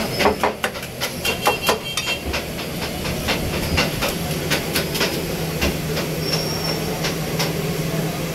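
A metal spoon clinking against a steel bowl as eggs are beaten, in quick irregular taps, over a steady hiss. A low steady hum comes in about four seconds in.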